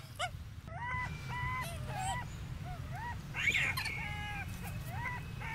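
Golden snub-nosed monkeys calling: a run of short, high, squeaky calls, about two a second, over a steady low rumble.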